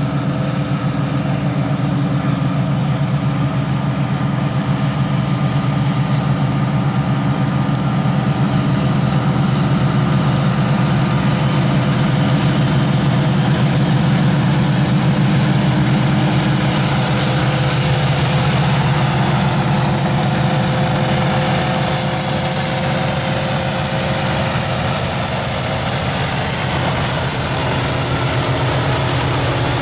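Diesel-electric freight locomotives, led by Union Pacific units, run by with a steady, deep, throbbing engine rumble that grows slightly louder over the first few seconds as they approach.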